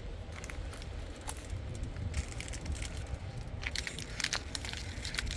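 Dogs chewing and mouthing a sock toy, making an irregular crackling, crunching sound: scattered sharp crackles at first, coming thick and fast over the last couple of seconds.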